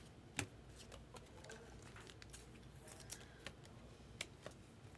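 Faint, scattered clicks and slides of glossy Bowman Draft Sapphire baseball cards being flipped through by hand, one card after another.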